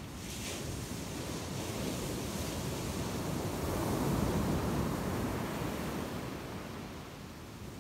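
Ocean surf washing onto a sandy beach, one wave swelling and breaking about four seconds in, then falling away.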